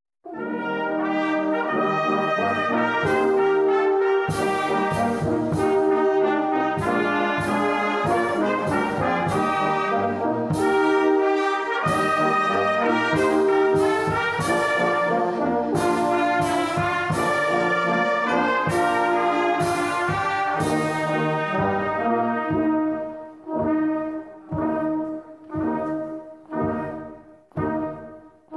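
Church brass band of trumpets, trombones and tubas playing a hymn in sustained full chords; about three-quarters of the way through it changes to short separated chords, roughly one a second.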